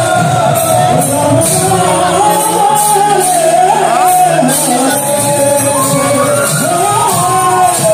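Devotional music with singing: a continuous melody line that glides up and down, loud and unbroken.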